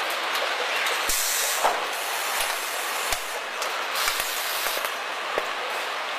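Car assembly line machinery noise: a steady industrial din with two louder bursts of hiss, about a second in and about four seconds in, and several short sharp knocks scattered through it.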